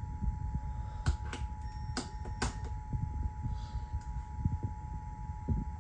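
Emergency Alert System attention signal: a steady two-tone alert tone that cuts off at the very end, just before the next alert message, over a low rumble. A few sharp clicks come between about one and two and a half seconds in.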